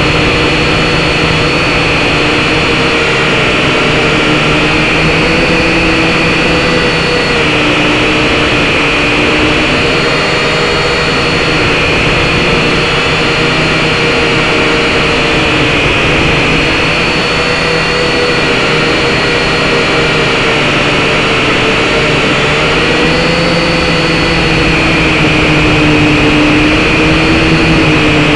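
SYMA X5HC-1 quadcopter's small electric motors and propellers whining steadily, heard close up from the drone's own camera. The pitch wavers up and down as the motors change speed to hold the drone in flight.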